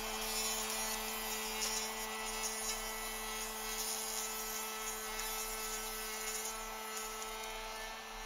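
Ridgid plunge router with a carbide-tipped rabbeting bit running steadily as it cuts a rabbet into the edge of a 2x4 frame.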